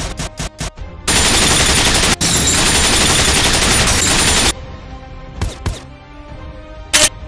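Gunfire in a film soundtrack: a quick run of shots, then a dense, loud wall of noise lasting about three and a half seconds. After that comes a quieter stretch of music with a couple more isolated shots, one near the end.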